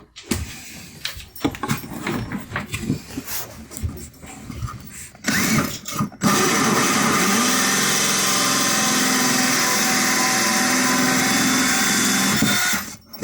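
A few seconds of knocks and clicks from handling, then a drill fitted with a 1¼-inch hole saw spins up and runs steadily for about six and a half seconds, cutting a hole, before stopping near the end.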